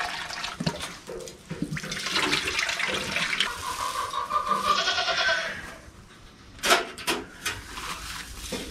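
Water pouring from a watering can into a rabbit hutch's water dish for the first three seconds or so, then a goat bleating once, drawn out and wavering, about four seconds in. A few sharp rustles of hay being gathered by hand follow near the end.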